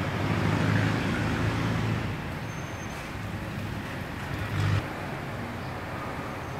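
Steady low rumble of road traffic, louder over the first two seconds, with a short low swell about four and a half seconds in.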